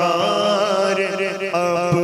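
Man singing a naat, an Urdu devotional poem, into a microphone in a chant-like style: one long held line whose pitch bends and wavers.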